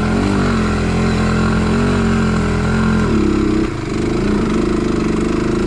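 1991 Honda 250X ATV's single-cylinder four-stroke engine running steadily near idle; about three seconds in its note shifts higher.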